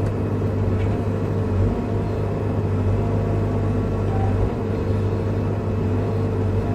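Bobcat E55 mini excavator's diesel engine running steadily with a low, even hum, heard from inside the cab while the machine handles logs.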